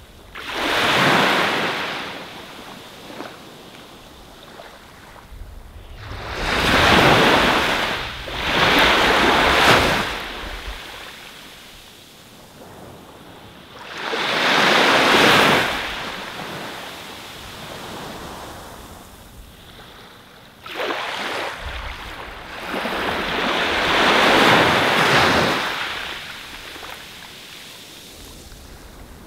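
Ocean surf: about six waves break and wash up the beach, each one swelling and fading over a second or two, with a soft hiss of water between them.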